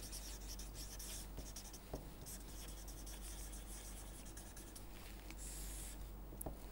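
A felt-tip marker writing on paper: faint, scratchy pen strokes as words are handwritten, then a long underline stroke.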